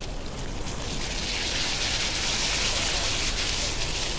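Redfish frying in oil in a pan over a campfire, a steady sizzle that swells about a second and a half in.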